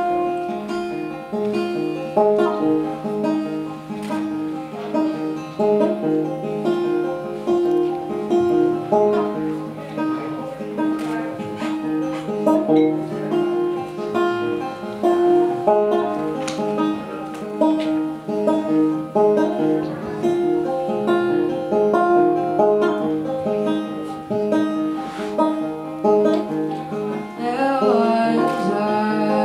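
Solo banjo being picked, a steady repeating pattern of plucked notes opening a song.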